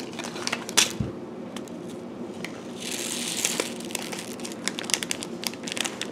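Small plastic packet of dry water beads crinkling as it is pinched open and shaken out over a plastic tub of water: a string of small clicks and rustles, with a longer, denser rustle about three seconds in.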